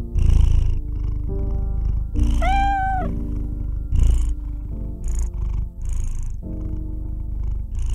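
A tabby kitten purring, a low steady rumble that swells and eases with each breath, with one short rising-and-falling meow about two seconds in. Soft background music with sustained notes plays along.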